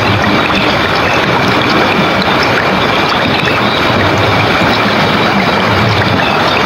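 Swift river water rushing and flowing, a loud, steady wash of noise.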